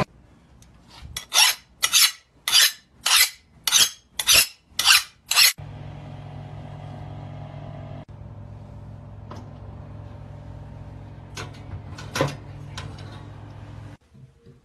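Nine rhythmic rasping strokes, about two a second, at a metal charcoal chimney full of burning coals. Then a steady low electric hum from an oven, with a few clicks and a louder knock about twelve seconds in as the oven is handled.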